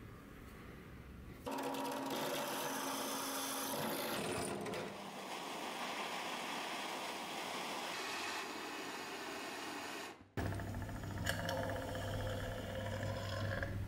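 Butane blowtorch flame hissing steadily as it heats a small iron melting pot. It starts suddenly about a second and a half in and cuts off near ten seconds, followed by a steady low hum.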